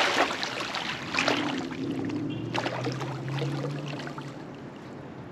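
Water splashing as a big carp thrashes against a landing net in the shallows, with splashes at the start, about a second in, and about two and a half seconds in, then settling to quieter water sounds.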